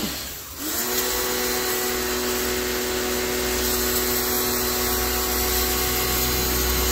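DYLECT Ultra Flow Plus 1900-watt electric pressure washer: its motor picks up again about half a second in, rising quickly to a steady whine, with the hiss of the water jet spraying.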